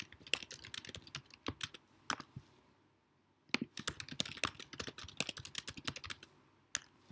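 Typing on a computer keyboard: two runs of rapid key clicks with a pause of about a second between them, then a single click near the end.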